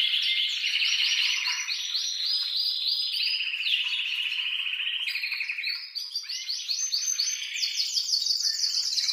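Male domestic canary singing an excited breeding-season song: rapid trills of repeated notes that switch to a new phrase every second or two, with a lower trill about halfway and a higher, faster trill near the end.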